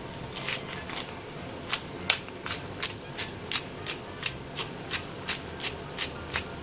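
Hand pepper grinder being turned over a pot, clicking about three times a second as it grinds black pepper, over the steady hiss of the broth boiling hard.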